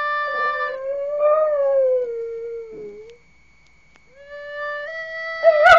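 A dog howls along with a recorder. A held recorder note gives way to one long wavering howl that slowly falls in pitch and dies away about three seconds in. After a short pause the recorder starts a new note, and there is a sharp knock near the end.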